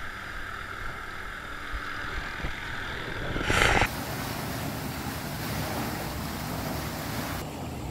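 Water rushing steadily through a concrete dam outlet. About three and a half seconds in there is a brief loud burst of noise, after which the rush sounds brighter and hissier.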